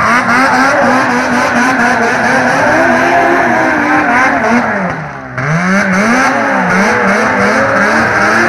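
Snowmobile engine revving hard as the sled spins donuts on packed snow. The revs drop sharply about five seconds in, then climb again and rise and fall with the throttle.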